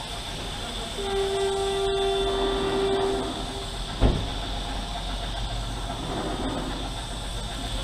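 Compressed-air paint spray gun hissing steadily as it sprays paint onto a scooter body panel. A horn sounds one steady note for about two seconds starting about a second in, and there is a single sharp thump about four seconds in.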